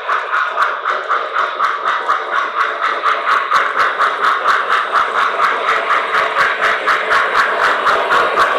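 Model steam locomotive's electronic sound system chuffing at a steady running pace, about five chuffs a second, as the train runs on the layout.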